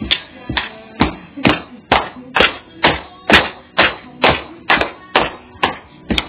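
A steady beat of sharp percussive hits, about two a second.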